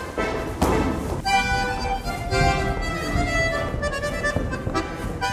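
Accordion music playing a dance tune, with held notes and chords from about a second in. A few sharp knocks, like shoes on the studio floor, sound over it.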